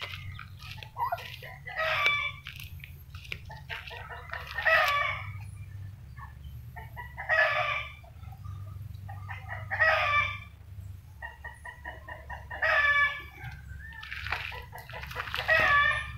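Roosters crowing again and again, a call every two to three seconds, over a low steady hum.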